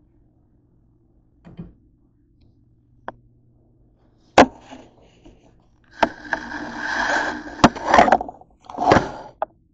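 Kitchenware being handled at a stainless-steel sink: a few small clicks, then a sharp metal knock, then a rough stretch of scraping and clattering with more sharp knocks near the end.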